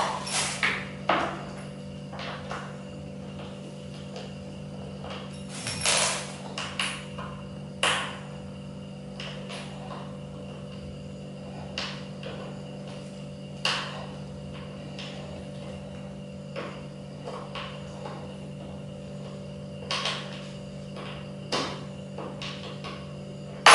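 Irregular knocks and clicks of an office chair's white plastic frame and fittings being handled and fitted together during assembly, several seconds apart, over a steady low hum.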